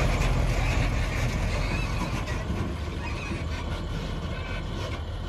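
Diesel dump truck engine pulling away over rough dirt ground, the rumble growing steadily fainter as the truck drives off.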